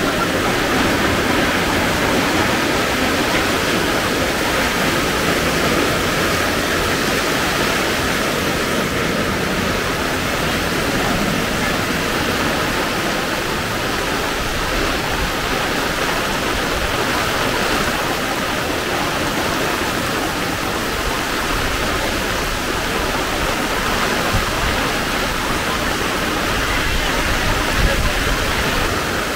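Heavy rain falling steadily in a dense, even hiss.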